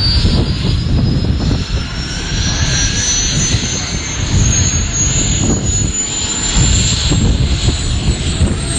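Bell UH-1 Iroquois helicopter running on the ground ahead of liftoff: the turbine's high whine rises steadily in pitch as it spools up, over the dense low rumble of the engine and main rotor.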